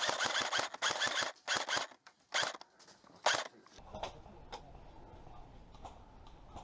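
Airsoft guns firing: a rapid string of shots, then a few single shots spaced about a second apart, followed by fainter clicks.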